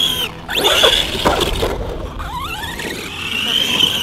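Brushless electric motor of a 1/10-scale Kyosho Mad Van VE RC monster truck whining with the throttle as it climbs a steep wall ride. The pitch rises in quick glides, drops out briefly about a third of a second in and again around two seconds as the throttle is let off, then holds high near the end. There are a couple of short knocks between one and two seconds in.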